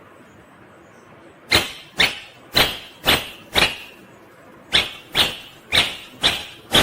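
Green Indian ringneck parrot giving short, sharp, harsh calls, about two a second, in two runs with a short break between.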